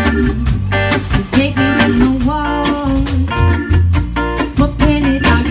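Live band playing: a drum kit keeps a steady beat under electric bass, electric guitars and keyboards.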